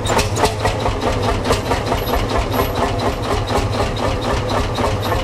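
Old farm tractor engine idling, a steady low hum with an even, rapid beat of firing strokes.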